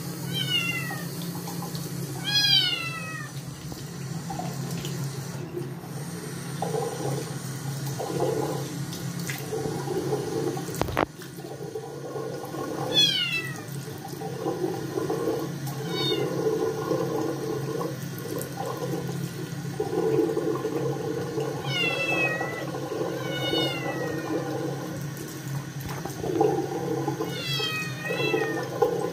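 A Scottish kitten meowing loudly in protest at being bathed: high, falling-pitch meows in short runs with long gaps between, over a tap running into a sink and water splashing on fur and hands. There is one sharp click about eleven seconds in.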